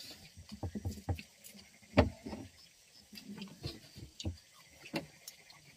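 People eating with their bare hands from rice, salted fish and greens on banana leaves: scattered small clicks and crackles of fingers working the food on the leaves, and chewing. One sharp knock comes about two seconds in, and a fainter one about five seconds in.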